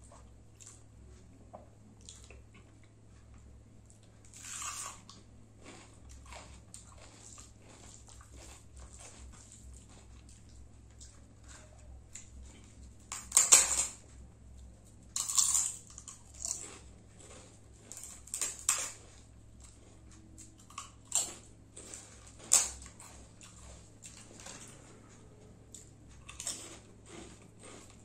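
Close-miked eating sounds: a person chewing and smacking mouthfuls of rice and dal eaten by hand, with scattered short wet clicks. There are a few louder bursts, the loudest about halfway through.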